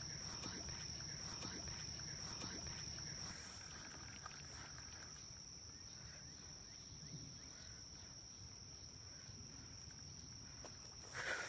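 Steady chorus of insects such as crickets, a single high-pitched note over a faint low rumble, with a short louder noise at the very end.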